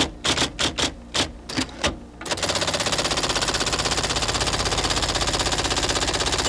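Typewriter clacking: several separate keystrokes, then, about two seconds in, a fast, even run of clicking that carries on.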